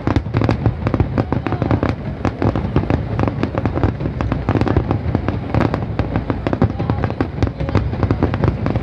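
Aerial firework shells bursting in a rapid salvo: a dense, irregular string of loud bangs and cracks, several a second.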